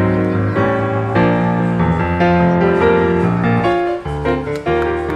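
Music led by a piano or keyboard, playing sustained chords that change about once a second.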